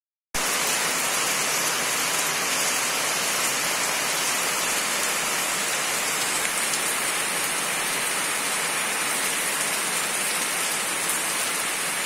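Heavy, steady rain falling on a paved courtyard and sheet-metal roofs, an even hiss that holds at one level throughout.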